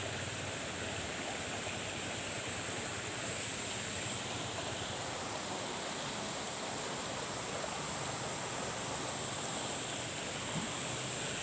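Steady rushing noise of running water, even throughout, with a thin, high, steady tone above it.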